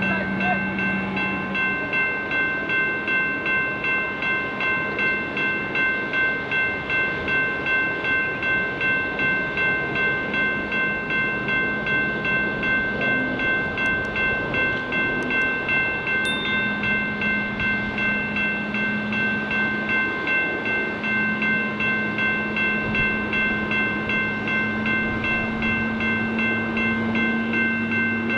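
Railroad grade-crossing warning bell ringing continuously in a quick, even rhythm. Under it a diesel locomotive's engine drones, its pitch rising a little in the second half as the train pulls through.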